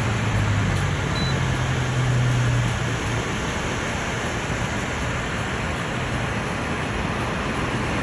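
Electric air cooler's fan running, a steady rush of air, with a low hum during the first three seconds.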